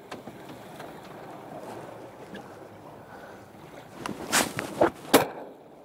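Small boat on open sea: a steady wash of water and wind noise, broken near the end by three loud, short bursts.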